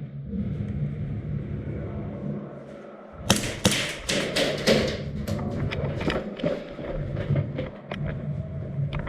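Airsoft guns firing: a quick, irregular string of sharp cracks, several a second, starting about three seconds in, over low thuds and rustling.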